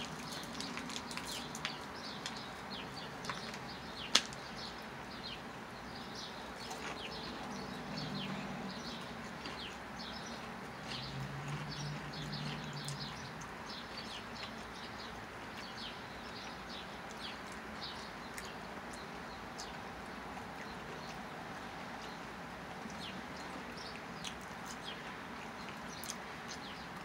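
Steady hum and hiss of an outdoor air-conditioning unit, with many short high chirps scattered through and one sharp click about four seconds in.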